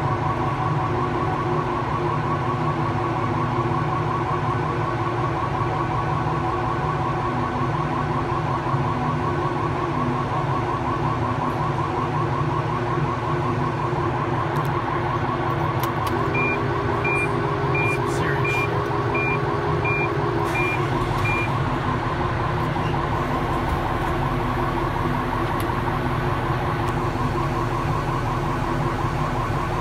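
Steady engine drone heard from inside a vehicle rolling off a car ferry, with a fast-warbling tone running through it. About halfway through, a run of eight short high beeps sounds over about five seconds.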